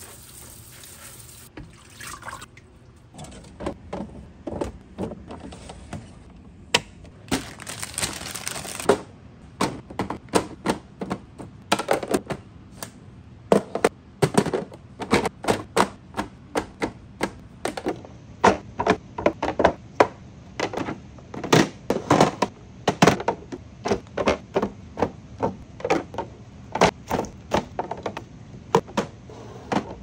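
A kitchen tap sprays water over grapes in a plastic colander briefly near the start and again about eight seconds in. After that comes a long run of sharp clicks and knocks, several a second, as fruit such as lemons is set into clear plastic fridge organizer bins and the bins are handled.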